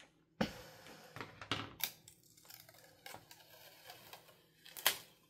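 Short scrapes and taps of a plastic scraper over a clear gridded transfer sheet on a painted wooden frame, then the sheet being peeled back, with a sharp crackle of the peeling plastic near the end.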